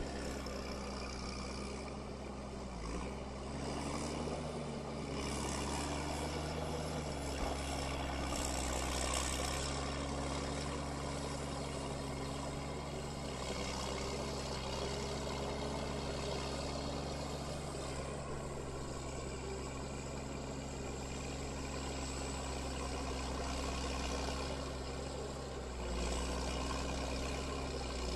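A heavy machine's engine running steadily at an even speed.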